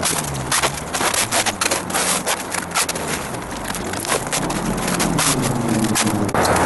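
Plastic stretch wrap crackling as it is pulled off the roll and stretched tight around the frame: a dense run of irregular sharp crackles and snaps.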